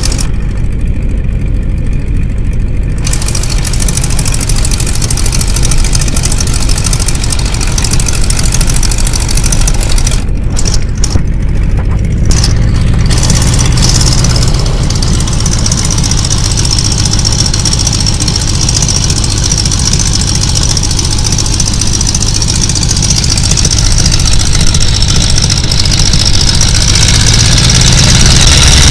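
Boeing Stearman biplane's radial engine running steadily, heard from the open cockpit, growing louder over the last few seconds.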